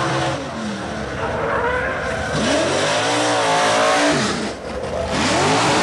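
Engine of a fire drill team's racing rig revving hard down the course, its pitch climbing and falling several times, with a crowd's voices around it.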